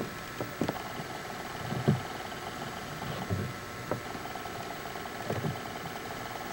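Steady camcorder tape hiss with a faint constant whine, broken by several irregular soft low thumps and crunches as American black bears feed and move among logs close by.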